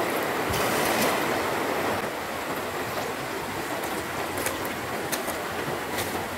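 River water rushing in a steady noisy wash, a little louder in the first two seconds, with a few faint clicks over it.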